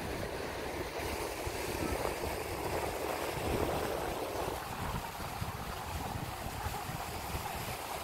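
Surf washing on the beach, swelling about a second in and easing off after four and a half seconds, with wind buffeting the microphone as a low, uneven rumble.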